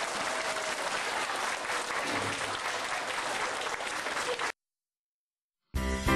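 Audience applauding, cut off abruptly about four and a half seconds in. After a second of silence, music starts near the end.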